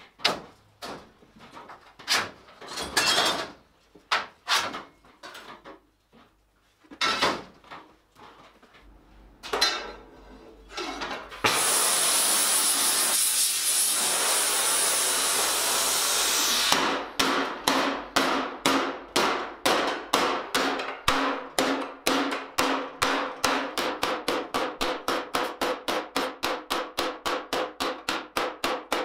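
Hammer blows on sheet steel over a stake anvil, as a helmet blank is dished. Scattered blows come first, then a loud steady hiss for about five seconds, then rapid even blows, about four a second, with a faint metallic ring.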